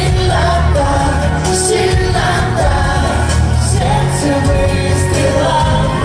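Live pop song: men's voices singing over a loud band track with a heavy, steady bass.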